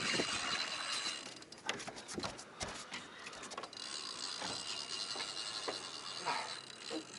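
Fishing reel ratcheting: a run of fast clicks about two to three and a half seconds in, over a steady hiss.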